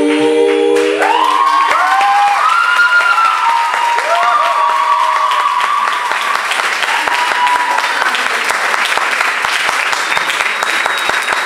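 The dance track's last notes die out about a second in. Then an audience claps and cheers, with whoops over the first few seconds, and the clapping carries on steadily.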